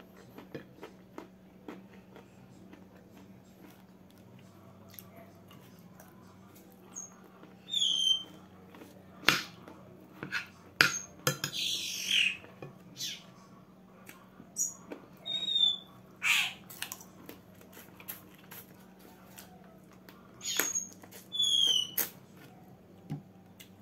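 A bird chirps a few times, each chirp short, high and sliding downward. In between come mouth smacks and clicks from eating, a spoon against a plate among them, over a faint steady hum.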